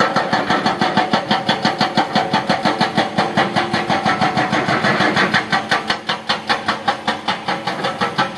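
Hydraulic rock breaker on an excavator hammering rock in a steady rapid pounding of about six blows a second, over the excavator's diesel engine running.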